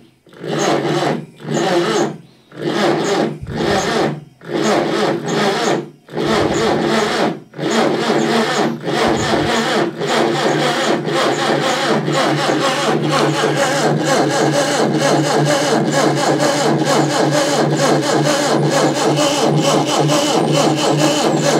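Starter motor cranking a Reliant Regal 600cc four-cylinder engine on a test bench, first in about ten short bursts, then turning it over continuously for about twelve seconds without it firing. The engine won't catch, which the owner puts down to a battery that may not have enough charge and a starter solenoid that isn't pulling in fully.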